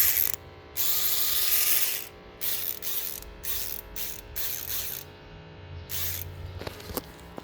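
Vessel electric ratchet running in bursts, its ratchet mechanism clicking: a short run, then a longer one of about a second, then a string of quick blips. A faint rising whine opens some of them.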